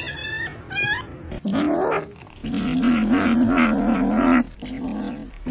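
A cat gives a few short high calls, then growls in long, low, wavering stretches while biting into food.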